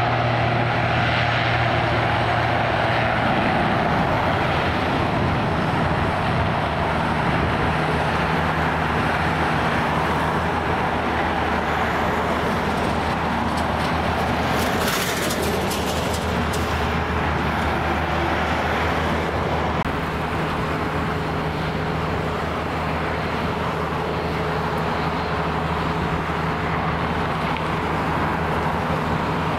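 ATR 72 turboprop running its two propeller engines on the runway for departure: a steady, loud drone with a low propeller hum.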